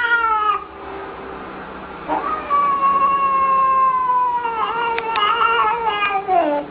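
A cat yowling in long drawn-out calls: one trails off about half a second in, then another starts about two seconds in, holds steady for about four seconds and falls in pitch as it ends.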